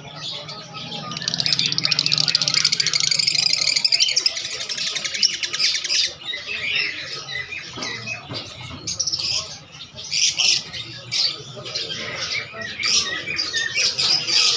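Caged birds chirping and squawking: a dense, fast high-pitched chatter for a few seconds, then a run of short, sharp calls repeated every half second or so.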